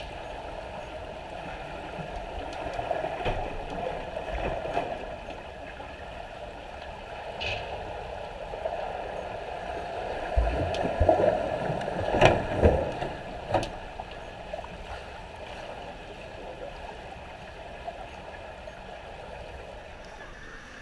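Muffled churning of swimmers' freestyle strokes, kicks and bubbles, heard underwater. Louder surges of splashing and bubbling come about ten to fourteen seconds in as a swimmer passes directly overhead.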